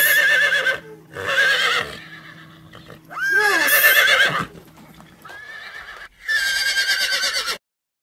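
Horse whinnying, about five neighs in a row with a wavering pitch, one of them fainter; the sound cuts off suddenly shortly before the end.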